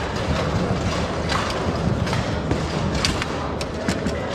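Table-football play on a Bonzini table: a few sharp, irregularly spaced clicks and knocks of the ball striking the player figures and the table, over a steady background noise.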